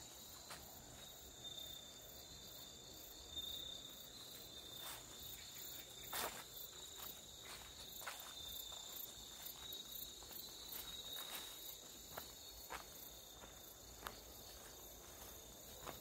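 Insects trilling steadily in high, unbroken tones, with scattered soft footsteps and rustles in the grass; the loudest step comes about six seconds in.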